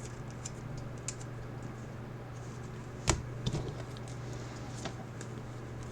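Trading cards and packs being handled on a table: scattered light clicks and taps, with one sharp knock about halfway through and a few softer ones just after, over a steady low hum.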